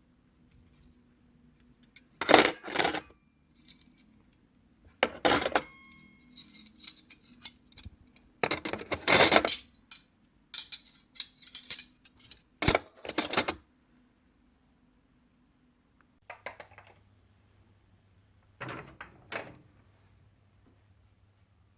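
Hard objects clinking and clattering as they are handled and set down: several short sudden clatters, one with a brief ringing tail, then a pause and two softer ones near the end.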